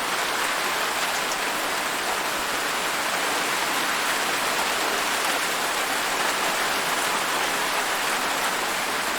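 Steady rain falling on a surface, a dense, even hiss of drops.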